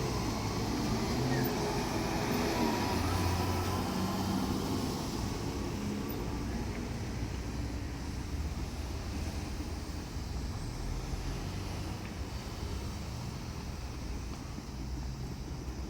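A vehicle engine running with a low drone, loudest in the first few seconds and slowly fading.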